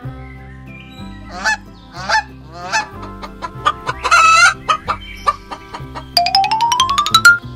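Farmyard bird calls over light background music: three short honking calls, then a longer wavering call about four seconds in. Near the end comes a fast-pulsing call that rises steadily in pitch and is the loudest sound.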